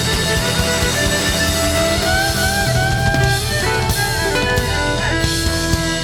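Live rock band playing: an electric guitar lead with notes that bend in pitch near the middle, over drums and a steady bass.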